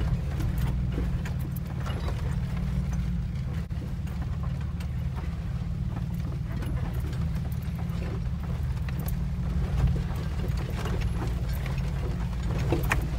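Jeep crawling slowly over a rocky, rutted dirt trail, heard from inside the cab: a steady low engine and drivetrain rumble with frequent knocks and rattles as it goes over the bumps.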